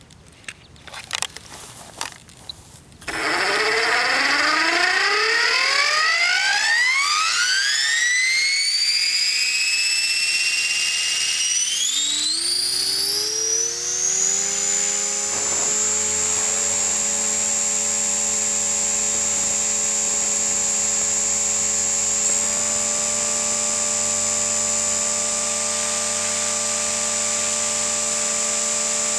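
Electric RC helicopter (Align T-Rex 500) spooling up: a few clicks, then about three seconds in the motor whine starts low and climbs steadily in pitch for about ten seconds as the rotor head speeds up, with a lower rotor hum coming in. It then holds a steady high whine and hum at flying speed as the helicopter lifts off.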